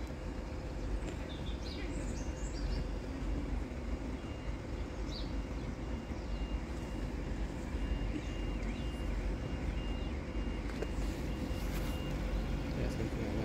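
Level crossing warning alarm beeping faintly at one high pitch, about twice a second, over a steady low rumble of wind and distant traffic. A few bird chirps come near the start.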